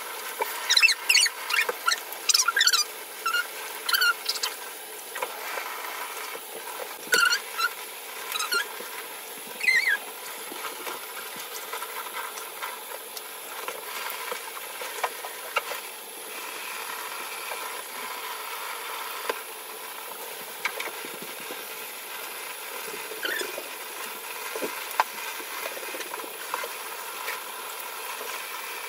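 Shower spray running steadily, with a run of short, high-pitched squeaks during the first ten seconds or so as wet, soapy skin is scrubbed, then only the spray with a few soft knocks.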